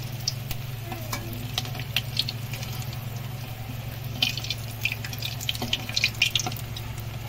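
Coated chicken pieces deep-frying in hot oil in a metal kadai, the oil bubbling and crackling while a metal slotted spoon stirs and turns them. There is a burst of sharper crackles and clinks about four to six and a half seconds in, over a steady low hum.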